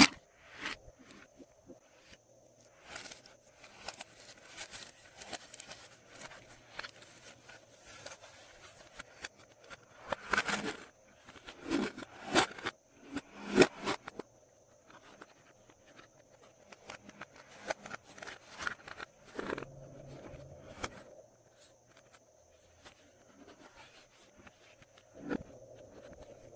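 Glossy slime being handled and mixed in plastic piping bags: irregular crinkles, clicks and sticky crackles, busiest from about ten to fourteen seconds in.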